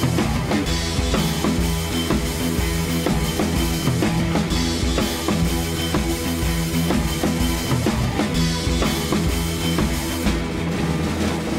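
Rock background music with a steady drum-kit beat and bass.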